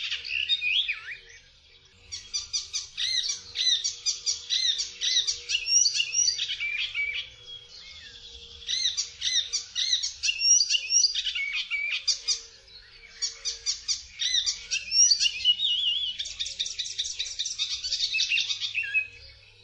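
Icterine warbler singing: long runs of fast, varied notes in four stretches, broken by short pauses about 1.5, 8 and 12.5 seconds in.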